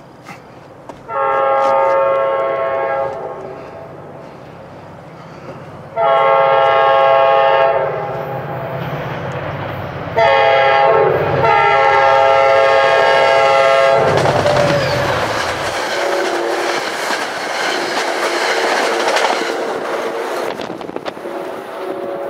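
An NJ Transit diesel train's air horn sounding the grade-crossing signal as it approaches: long, long, short, long. A low engine rumble runs under the horn, and then the train passes at speed with a loud rush of wheel and rail noise for several seconds.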